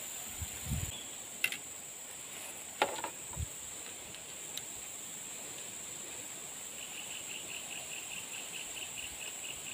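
Insects drone steadily at a high pitch, and about seven seconds in a rhythmic chirping joins them at roughly four pulses a second. A few soft knocks come in the first few seconds.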